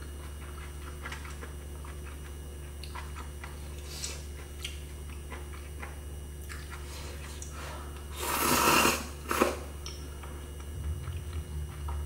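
Instant ramyun noodles slurped from chopsticks: a long loud slurp about eight seconds in and a short one right after. Soft clicks of chopsticks and chewing sit around them over a steady low hum.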